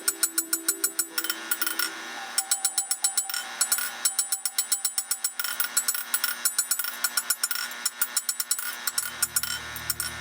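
Rapid runs of hammer blows on a khopesh sword blank over the anvil, each strike ringing, with short pauses between runs while the blade profile is forged. Music fades in near the end.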